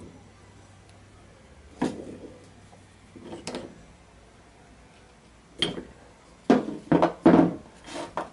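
Steel lathe tailstock parts and hand tools being handled and set down on a workbench: a few separate metallic clunks, then a quicker, louder run of knocks about six and a half seconds in.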